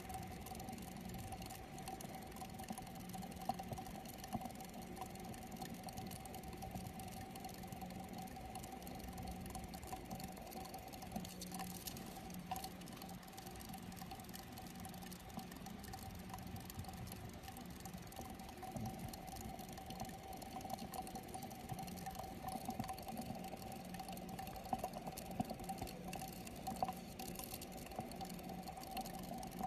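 Hamster running in a plastic exercise wheel: the wheel spins with a faint steady whir, with light scattered ticks and rattles.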